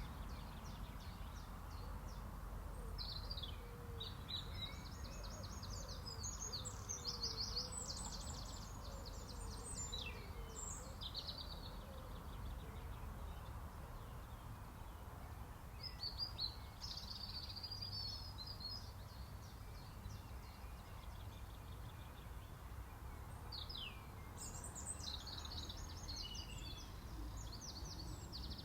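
Songbirds singing in bursts of quick, high chirping and trilled phrases, with pauses of several seconds between them, over a steady low rumble of background noise.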